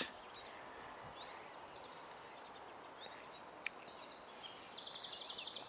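Small birds chirping and singing over a faint steady outdoor hiss, busier in the second half, with a fast even trill near the end and a single faint click a little past halfway.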